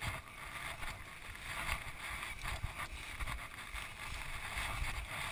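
Footsteps crunching and rustling through roadside gravel and weeds, muffled through a chest-mounted GoPro's housing, with an uneven low rumble of wind on the microphone.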